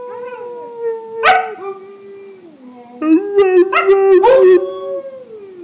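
Husky howling and 'talking': a long drawn-out howl that slowly falls in pitch, broken by a sharp yelp about a second in. About three seconds in comes a louder run of short, broken woo-woo calls, then the voice slides down again near the end.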